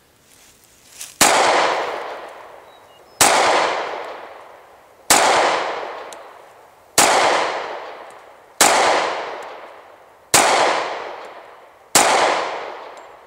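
Rock Island Armory 1911 pistol in .45 ACP fired seven times in slow, steady succession, about one shot every two seconds, each shot trailing off in a long fading echo. The pistol cycles every round without a malfunction.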